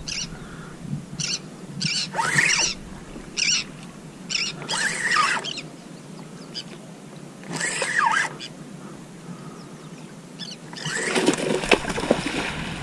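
Birds calling in short, arching calls at irregular intervals, about eight times, with a longer and louder stretch of calling near the end.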